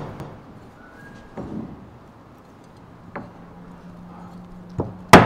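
Light clicks and taps from a hand tool working stretch flashing tape into the corner of a wooden window sill, with a faint steady hum in the middle. Two sharp, loud knocks come near the end.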